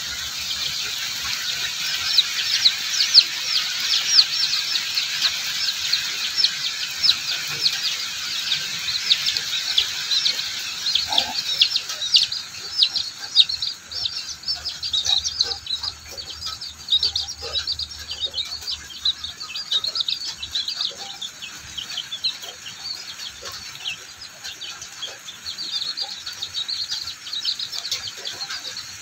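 Chicks peeping rapidly and continuously, many short high-pitched peeps overlapping, with a few lower clucks from the mother hen as she forages with them.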